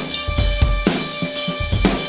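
Instrumental break in a neo-soul song: a drum kit keeps a steady groove with a sharp snare hit about once a second over bass drum, under a held chord, with no singing.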